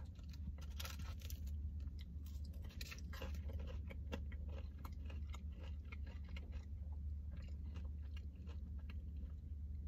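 A person quietly chewing a mouthful of fried potato wedges, with small irregular crunches.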